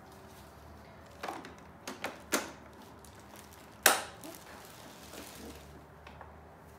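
A few sharp plastic clicks and knocks as a bagless vacuum cleaner's parts are handled, the loudest about four seconds in.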